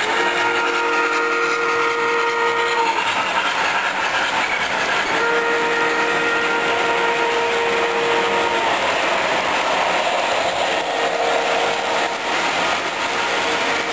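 Model steam locomotive's electronic whistle sounding two long chime blasts, a few seconds apart, then a fainter third near the end. Under it, the steady running rumble and rail clatter of O-gauge hi-rail model trains on the layout.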